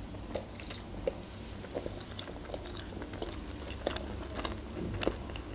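Close-miked chewing of a mouthful of manty (meat dumplings), with many short mouth clicks scattered through it.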